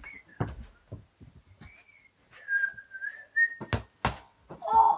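Someone whistling a wavering tune in snatches, broken by a few sharp thumps of a football being kicked around a small room, the strongest about four seconds in. It ends with a short, loud, pitched vocal cry.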